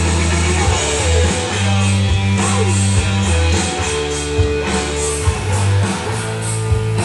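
Loud rock music with guitar, heavy bass notes and a steady drum beat.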